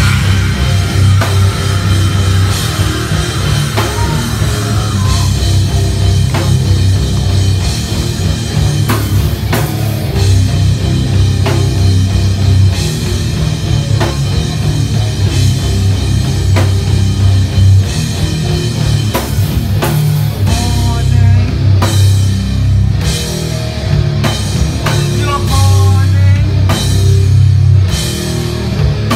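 Live punk band playing loud: electric guitar, bass guitar and a drum kit together.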